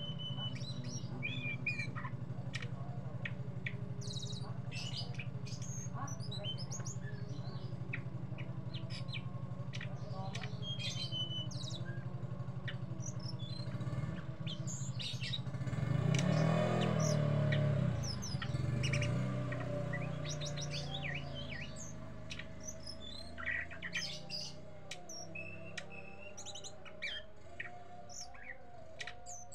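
Hill blue flycatcher (tledekan gunung) chirping and twittering in short, high, scattered notes throughout. Underneath runs a steady low drone that swells loudly about halfway through, then fades.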